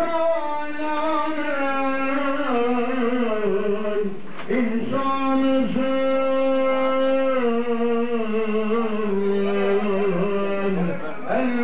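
A man's solo voice chanting in long, ornamented held phrases, the pitch stepping and sliding between notes, with short pauses for breath about four seconds in and near the end.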